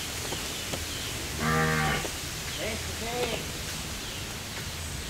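A single short, loud call on one steady pitch, lasting about half a second, about a second and a half in. Fainter calls that rise and fall in pitch follow.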